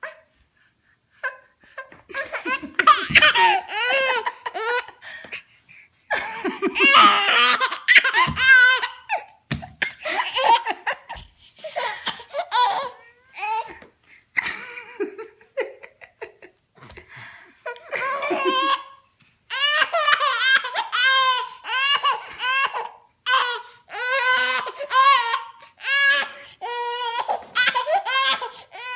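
A baby laughing in repeated bouts of high-pitched giggles and belly laughs, cracking up at her own hiccups.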